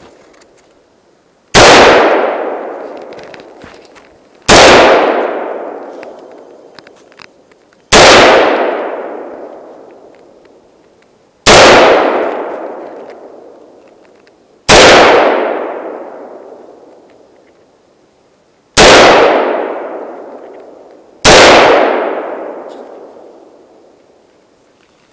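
Century Arms AR-15 (M16A1-pattern) rifle fired seven single shots at an unhurried pace, a few seconds apart, each shot loud and followed by a long echoing decay lasting about three seconds.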